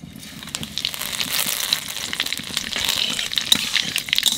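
Panch phoron seeds and bay leaves sizzling and crackling in hot oil in a kadai as the tempering begins. The sizzle builds over about the first second, full of sharp pops from the seeds, while they are stirred with a metal spatula.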